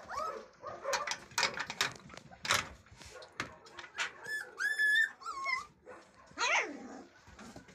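Puppies whining and yipping: several short high whines in the middle, then one falling whine near the end, over short clicking and scuffling sounds.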